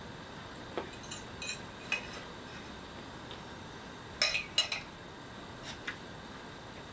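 Metal fork clinking and scraping against a ceramic plate while food is scooped up: scattered sharp taps, the loudest a quick run of several about four seconds in.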